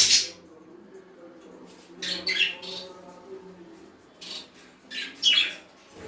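Pet budgerigars and cockatiels calling in short, loud, high-pitched bursts: one at the start, a cluster about two seconds in, a brief one past four seconds and another near the end.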